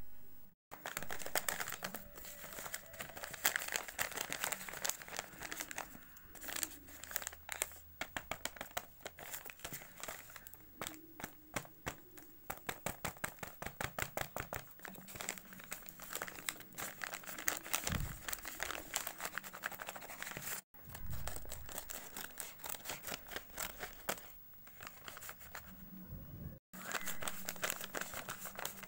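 Handmade paper blind bag and the paper craft items inside crinkling and rustling as hands handle and open them, with some tearing of paper. The sound cuts out briefly twice in the second half.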